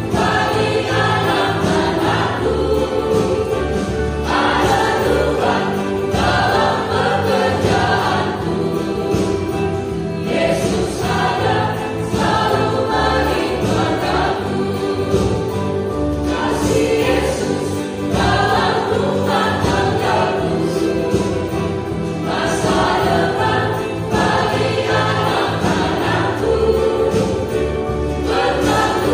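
Mixed choir of men's and women's voices singing a hymn in phrases, with violin accompaniment.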